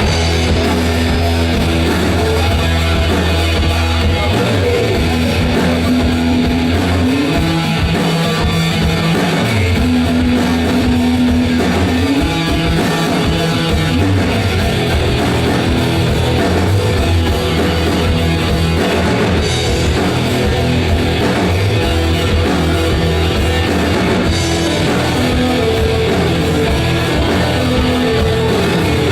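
Instrumental rock music: guitar, bass and drum kit playing together, the bass holding long notes that change every few seconds.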